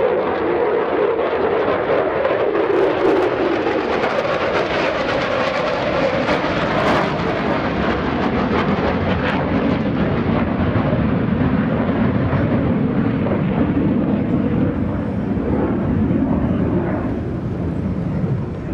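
F-35C Lightning II jet flying past, its single F135 turbofan making loud, steady engine noise. The pitch drops over the first few seconds and then stays lower.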